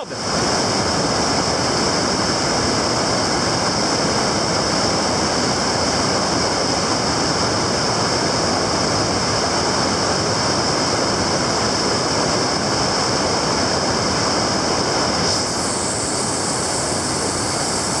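Steady rush of a whitewater river rapid, churning water with no break, a little softer in the last few seconds.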